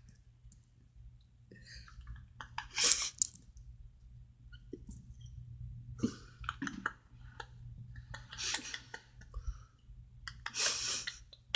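Light scattered clicks and taps of Play-Doh being shaped by hand on a table, with a few short breaths, the loudest about three seconds in and near the end, over a low steady hum.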